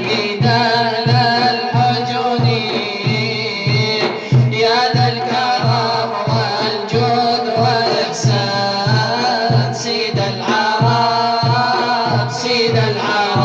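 Arabic nasheed music: a melody in a Middle Eastern style over a steady low drum beat, about two beats a second, with no clear lyrics.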